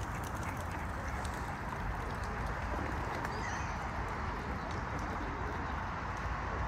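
Steady outdoor park ambience: a constant low rumble and hiss, with scattered faint clicks and a brief, faint bird chirp a little over three seconds in.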